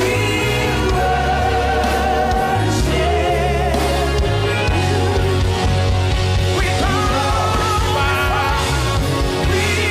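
Live gospel worship music: singers with vibrato over a band with a heavy bass line.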